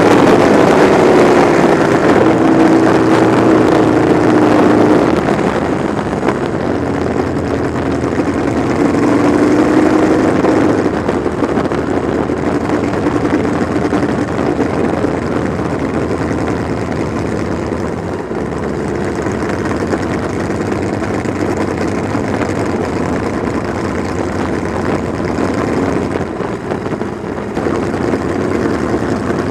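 Sprint car engine heard from on board at low speed: its pitch wavers up and down for the first few seconds, then it settles into a quieter, steady low-speed running as the car rolls along slowly in a pack.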